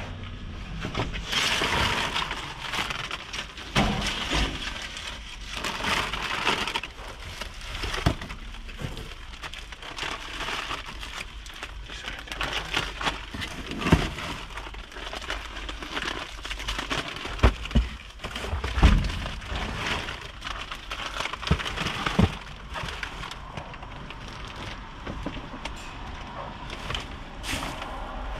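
Plastic film, bubble wrap and cardboard boxes crinkling and rustling as packaging waste is rummaged through and shifted inside a metal dumpster, with a few heavier thumps past the middle.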